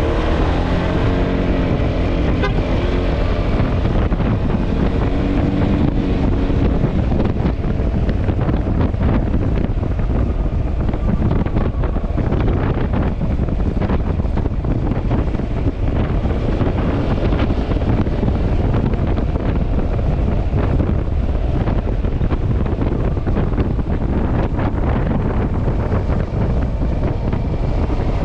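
Wind buffeting the microphone over the steady running and road noise of a Yamaha Xmax scooter under way. A pitched engine note shows more clearly in the first few seconds.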